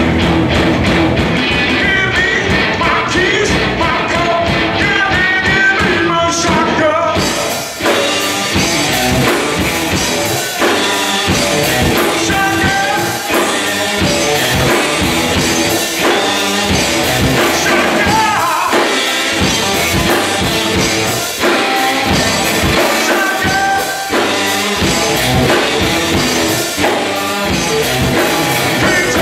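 Live rock band playing a song with electric guitar, drum kit and a sung lead vocal. Just before eight seconds in the music drops out for a moment, then comes back brighter and fuller.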